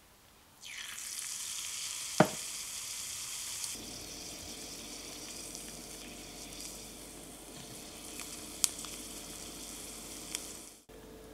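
Battered sansho (Japanese pepper) leaf sizzling in hot oil in a tiny pan. The sizzle starts suddenly as the leaf goes in, about half a second in, and keeps on steadily. There is one sharp click about two seconds in and two lighter clicks near the end.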